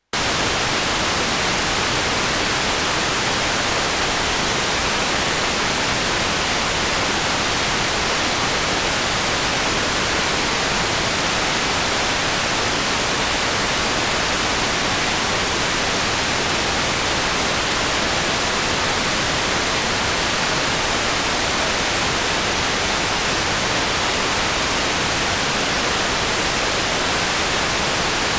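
Loud, steady static hiss, like a television tuned to no channel, that starts abruptly and stays level: playback noise from a blank stretch of videotape.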